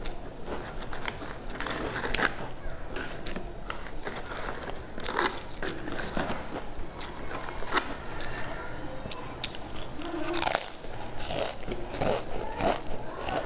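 Crisp stacked potato chips crunching as they are bitten and chewed close to the microphone, with light clicks of chips being handled and stacked. The crunching gets busier and louder near the end.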